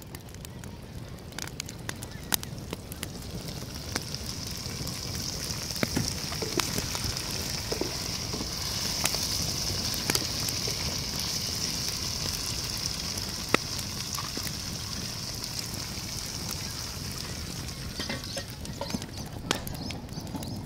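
Goat meat sizzling in sauce in a metal pot over a wood fire, a steady hiss that grows louder toward the middle, with scattered clicks as a wooden spoon stirs it.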